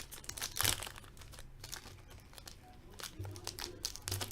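Crinkling and crackling of a trading card pack's wrapper being handled, with the sharpest crackle a little under a second in.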